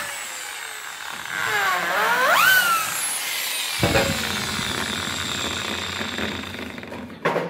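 Handheld electric drill boring into a wooden block: its motor whine falls in pitch, dips and rises again as the trigger is worked, then runs steadily for about three seconds and stops abruptly near the end.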